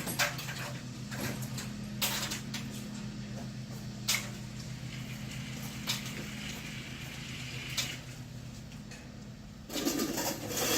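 A hand wrench working a bolt: sharp single metallic clicks about every two seconds over a steady low hum, with a louder clatter near the end.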